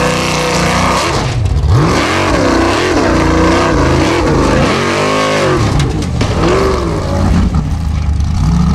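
Formula Offroad hill-climb buggy's engine revving hard at full throttle, its revs surging up and down over and over as it claws up a steep loose slope, settling to a steadier note near the end.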